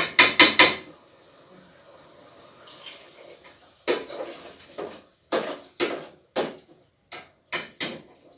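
Metal utensils clanking against a cooking pot: a quick cluster of clanks at the start, then about nine more separate clanks from about four seconds in.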